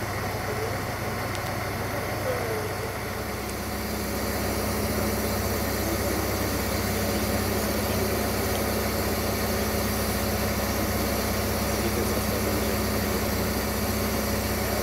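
Electroputere 060-DA (ST43) diesel-electric locomotive's Sulzer diesel engine running with a steady low drone as the locomotive approaches slowly. The drone grows a little louder and a steady hum joins it about three to four seconds in.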